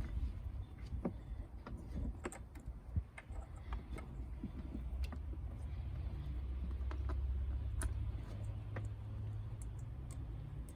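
Irregular small clicks and rattles of wiring parts being handled: spade terminals and plug-in diodes being fitted onto tail-light wires. A low steady rumble underneath swells in the middle and eases off near the end.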